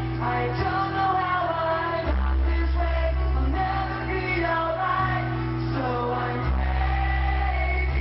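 Music with a lead vocal singing a melodic line over held bass notes that change every two seconds or so.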